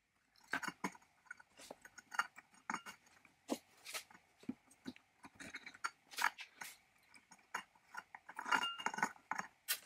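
Fingers handling the rusty steel parts of a 1930s Cutawl rotary jigsaw's base plate: irregular small metal clicks, clinks and gritty scrapes, busier about three seconds before the end, with a sharp click at the very end.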